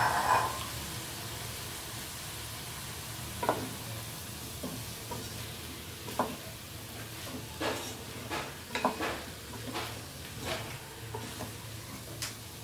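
A spatula stirring chunks of pumpkin through frying onions in a metal pot: scrapes and knocks against the pot over a light sizzle and a steady low hum. The stirring is sparse at first and gets busy in the second half.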